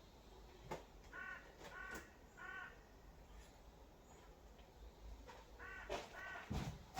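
Faint bird calls: three in quick succession about a second in, then two more near the end, with a few light knocks between them.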